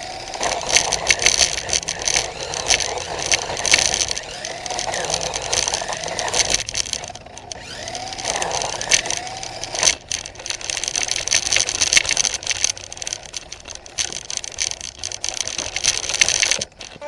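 Small battery-powered RC car driving over rough ground, its electric motor whining up and down with the throttle while the wheels and plastic chassis rattle and crunch.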